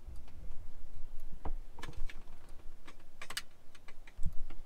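Scattered light clicks and taps from wiring and connectors being handled in a jet ski's engine bay, with a louder low thump about four seconds in.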